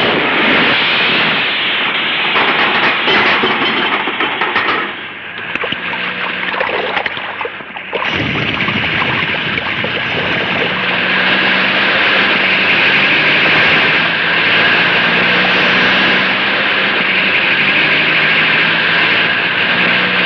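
Film chase soundtrack: a vehicle's engine and splashing water mixed with background music. The sound drops back for a few seconds, then returns abruptly and runs on steadily.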